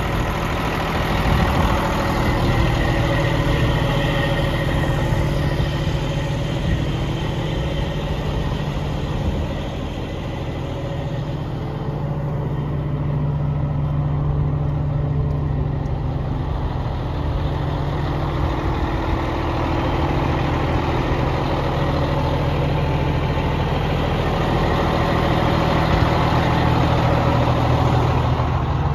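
Cummins diesel engine of a Freightliner Century truck idling steadily with an even low hum.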